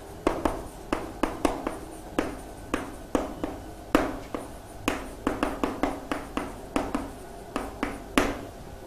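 Handwriting on a writing surface: an irregular run of sharp taps and short scratching strokes, several a second, as a figure is written or drawn. The strokes stop shortly before the end.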